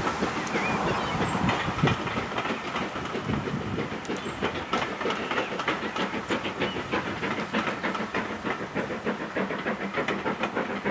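Steam-hauled passenger train running past, hauled by 8F 2-8-0 No. 8476: the coaches' wheels clatter over the rail joints in an even rhythm, with the hiss and exhaust of the steam locomotive ahead of them.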